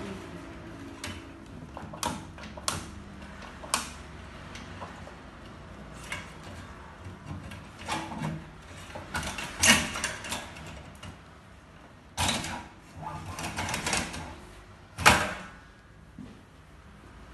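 Irregular metal knocks, clanks and short rattles as the stainless steel body of a continuous band sealer is worked onto its steel leg frame, loudest about 10 and 15 seconds in.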